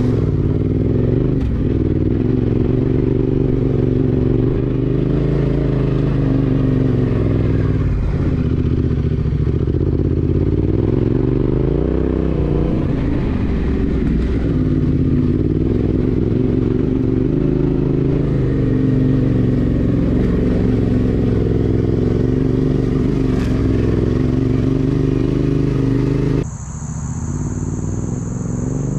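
Yamaha Ténéré 700's parallel-twin engine running as the motorcycle is ridden off-road, its pitch rising and falling with the throttle. Near the end the sound drops abruptly and a steady high whistle comes in.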